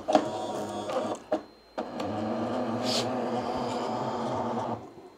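Creality CFS filament feeder motor running steadily as it pushes filament through the Bowden tube to the buffer to check that the path is clear. A few short clicks come first, and the motor stops suddenly near the end.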